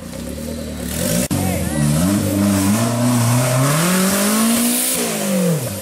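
Off-road buggy engine revving hard as the wheels spin in a muddy ditch. The pitch climbs steadily for about four seconds, then falls quickly near the end, over the noise of muddy water spraying up.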